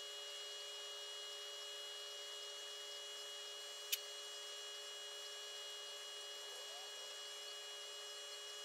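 Steady electrical hum with several fixed whining tones over a faint hiss, broken once about four seconds in by a single sharp click.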